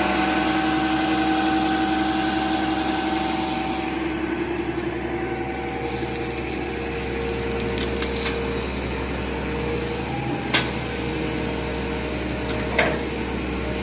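Heavy construction machine's engine running steadily, with two sharp knocks in the last few seconds.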